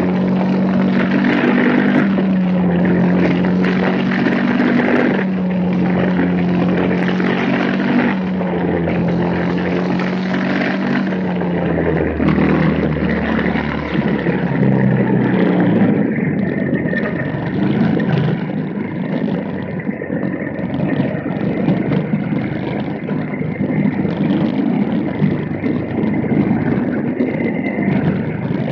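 Small racing-car engines running flat out during a race. One engine note dips and climbs back every few seconds, then blurs into a rougher mix of several engines about halfway through.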